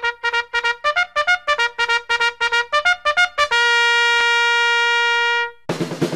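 Intro music: a brass melody of quick, short notes, then one long held note, with drums and a full band coming in near the end.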